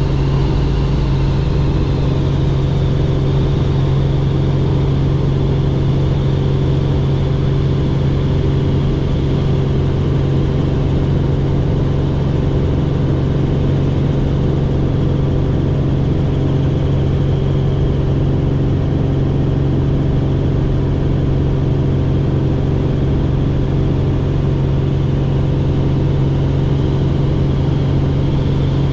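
Helicopter in steady cruising flight: a constant engine and rotor drone with a steady low hum and a high whine over it.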